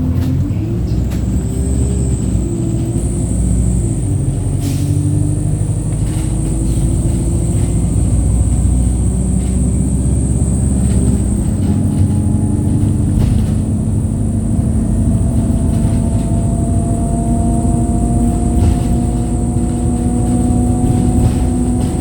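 Wright StreetLite single-deck bus heard loud from on board while driving: its diesel engine note rises and dips in the first few seconds, then about eleven seconds in the deep rumble eases and a whining note climbs slowly as the bus gathers speed. A thin high whistle runs throughout, with scattered knocks and rattles from the body.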